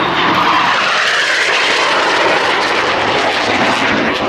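Loud jet noise of Northrop F-5E fighter jets flying past, their twin General Electric J85 turbojets making a steady rushing sound that swells in the first half second and then holds.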